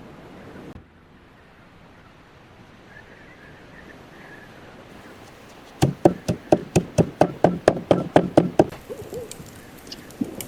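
A quick run of about seventeen sharp knocks, roughly six a second, lasting about three seconds and starting about six seconds in.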